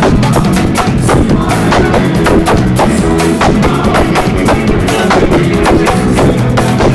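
Live band music driven by drums, with timbal hand drums and a drum kit playing a fast, dense beat over sustained instrumental tones.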